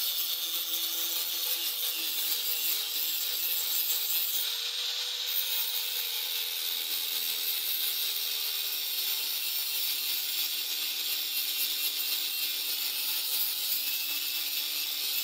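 Electric angle grinder grinding a steel bolo blade: a steady motor whine under the hiss of the disc on the steel, its pitch wavering slightly about five seconds in.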